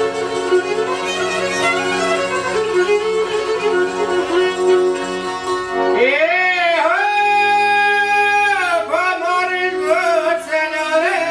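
Albanian folk ensemble playing: violin, long-necked çifteli lutes and accordion in ornamented melody. About halfway through, a long note slides up, holds for about two seconds and slides back down.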